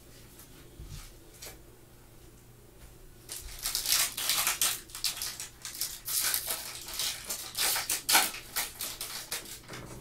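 Foil trading-card pack wrapper being crinkled and torn open by gloved hands, a dense crackling that starts about three seconds in, after a few faint ticks from cards being handled.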